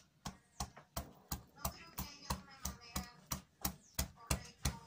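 Mallet knocking on the handle of a 12 mm half-round carving gouge, about three sharp knocks a second, driving the gouge along a channel in the wood.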